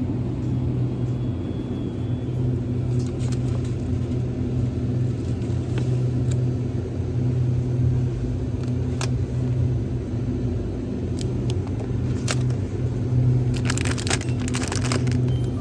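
Steady vehicle rumble with a constant low hum, broken by a few sharp clicks and a brief cluster of rattling near the end.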